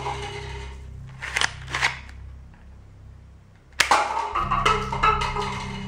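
Homemade cardboard toy pistol snapping as it fires, and red plastic cups clattering as they are hit and knocked over. Two sharp clicks come about a second and a half in, then a louder snap near four seconds with about a second and a half of plastic clatter after it.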